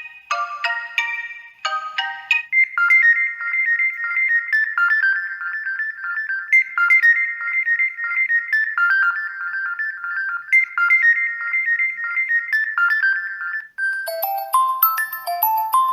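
Xiaomi Redmi 7A pre-installed ringtones playing one after another. A melody of spaced-out notes gives way about two and a half seconds in to a fast, high, tinkling melody. Just before the end, after a brief pause, another ringtone starts with lower chime-like notes.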